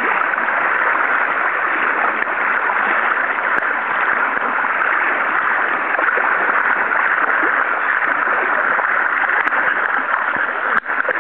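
River current flowing, a steady rushing wash of water.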